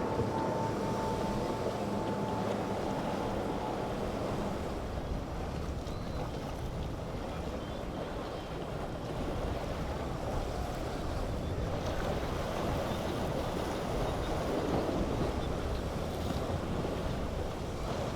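Motorboats running through a choppy inlet, mixed with waves and wind buffeting the microphone. A steady engine hum fades out about four seconds in.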